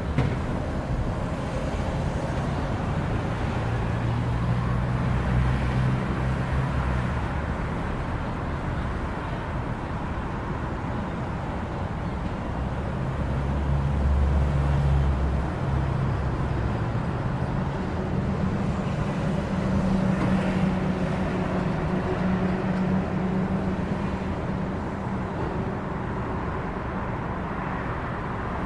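Traffic at a city intersection: a steady wash of car and tyre noise, with the low engine rumble of nearby vehicles swelling and fading several times.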